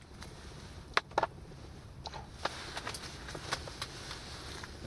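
Irregular light knocks and clicks of bowls, a frying pan and utensils being handled while butter and oil go into the pan, the loudest pair about a second in.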